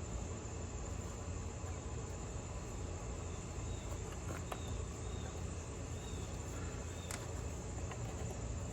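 Steady outdoor background: a constant high insect drone over a low rumble, with a couple of faint clicks.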